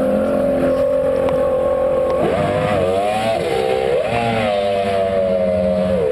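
Motorboat engine running hard at speed, holding a steady pitch that swoops up and down twice in the middle, then settles slightly lower near the end.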